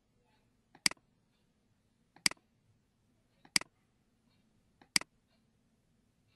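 Computer mouse clicking four times, one sharp click about every second and a half, as brush swatches are selected one after another.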